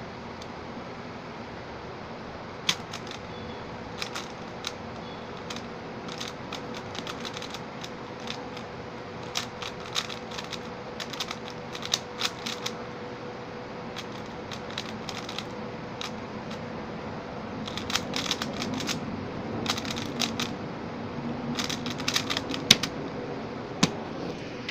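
Rapid plastic clicks and clacks of a stickerless 3x3 speedcube being turned fast during a timed solve, coming in quick flurries with brief pauses, over a steady faint hum. The loudest clicks fall near the end as the solve finishes.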